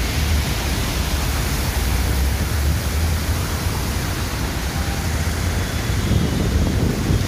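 Steady, loud rushing of heavy rain, with wind buffeting the microphone in a deep rumble underneath.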